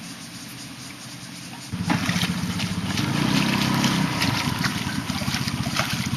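A hooked fish thrashing and splashing at the water's surface, starting about two seconds in. A loud, steady low rumble runs under the splashes.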